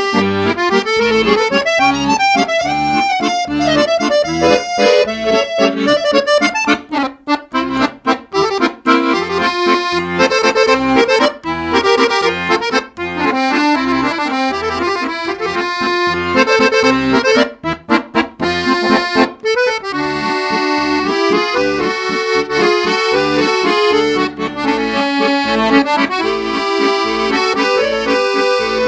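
Background music: a lively tune over a steady bass beat, turning briefly choppy twice, about a quarter of the way in and again past the middle.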